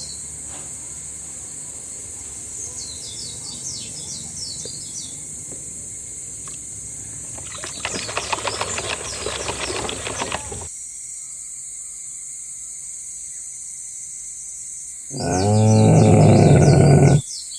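Birds chirping over a steady outdoor ambience. About eight seconds in comes a rapid, rhythmic noisy sound lasting a couple of seconds. Near the end a loud animal call lasts about two seconds.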